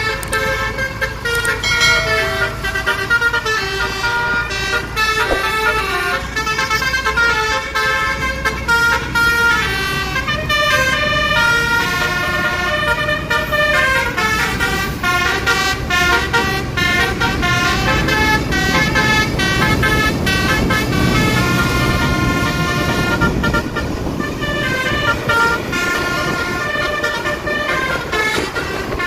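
Tour bus's basuri melodic horn playing a tune of quick stepping notes, over the steady rumble of bus engines and traffic.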